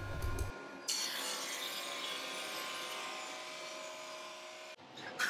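Drum sander running, its abrasive drum sanding a thin hardwood strip down in thickness: a steady rushing grind with a faint hum in it, which cuts off abruptly near the end.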